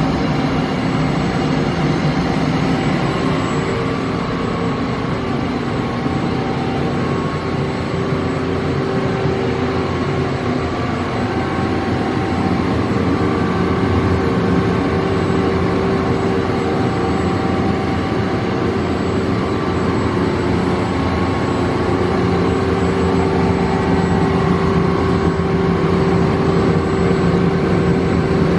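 Mazak Variaxis 630-5X five-axis machining center running under power: a steady mechanical hum and whine with several held tones that change pitch every few seconds.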